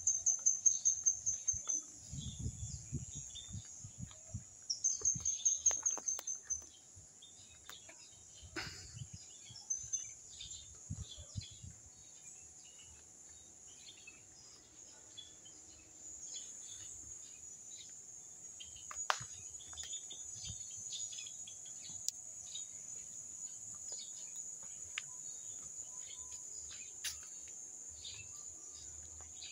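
Outdoor insect chorus: a steady high-pitched insect drone with scattered bird chirps. There are two bursts of rapid trilling near the start and a few low thuds in the first dozen seconds.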